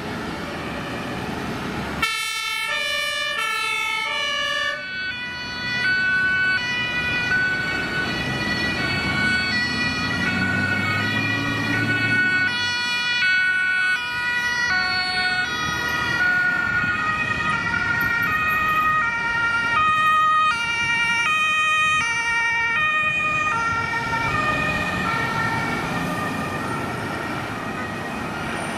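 Several German fire-engine two-tone sirens (Martinshorn) sounding at once, out of step with one another at different pitches, as a convoy of fire trucks drives past with their engines running underneath. The sirens cut in abruptly about two seconds in.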